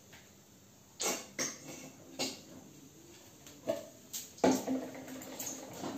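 Kitchen clatter: a handful of sharp knocks of a bottle and utensils against the gas stove and a steel kadai, spaced a second or so apart, then a steady whining tone that starts about four and a half seconds in.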